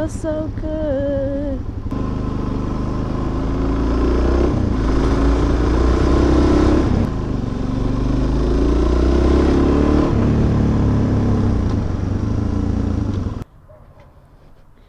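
Suzuki DR-Z400SM's single-cylinder four-stroke engine accelerating under way. Its pitch rises twice and drops suddenly after each rise, as with gear changes, and the engine sound cuts off abruptly near the end.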